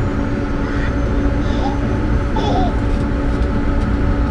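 Steady cabin noise of a Taipei MRT Circular Line medium-capacity metro train: a constant low rumble with a steady hum, heard inside the car. A couple of faint voices briefly sound over it.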